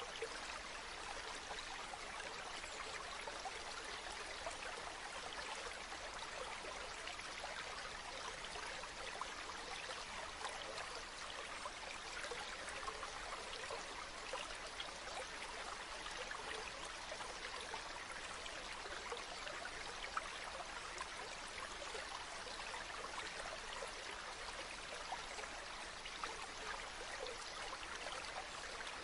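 A river flowing steadily: a continuous, even rush of water with small scattered splashy ticks.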